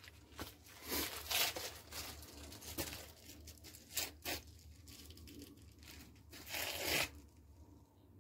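Scraping and rustling of plumbing parts being handled and fitted at a bathtub's overflow opening, with a few sharp clicks and knocks; the longest rustling bursts come about a second in and again near the end.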